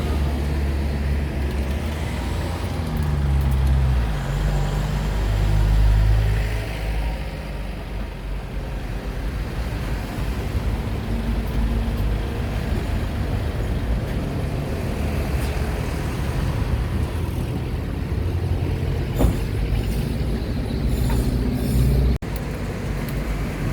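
Motor vehicle engine running with road noise, its pitch shifting over the first few seconds and then steady. A single sharp click about nineteen seconds in.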